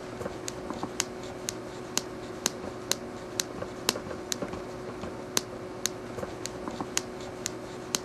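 Toe joints cracking over and over as a hand bends the toes: a long run of sharp little pops, two or three a second, unevenly spaced.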